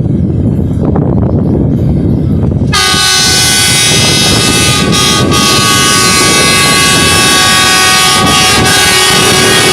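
Low rumble of a railway track-maintenance machine running on the line, then about three seconds in a loud multi-tone air horn starts and is held steadily.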